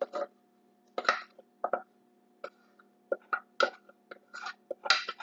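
Thick homemade cheese sauce pouring from a pan onto macaroni in a bowl, landing in a string of short, irregular wet plops.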